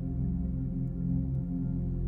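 Ambient sound-healing music of layered singing bowls and synth pads: many sustained tones held together, strongest in the low range, with a pulsing shimmer in the lowest notes.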